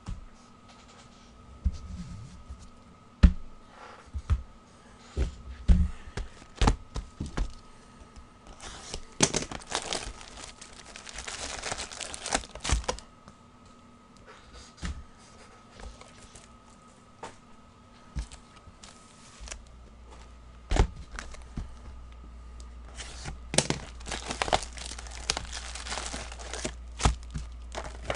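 Trading-card boxes being torn open and handled: sharp knocks of boxes being set down and two longer spells of crinkling and tearing as the wrapped card packs are pulled out and spilled onto the table.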